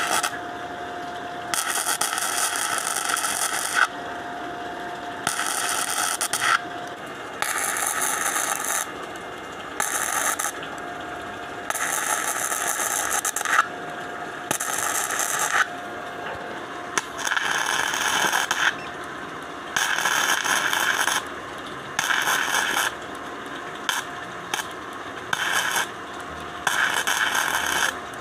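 Flux-core MIG welding arc crackling and sizzling in about a dozen bursts, each a second or two long, as two steel pieces are joined with 1.0 mm gasless wire. A faint steady whine sits in some of the pauses between bursts.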